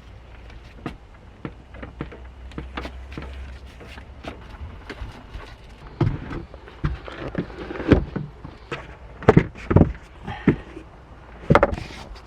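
Scattered light clicks and knocks of things being handled, turning into louder bumps and thumps from about six seconds in.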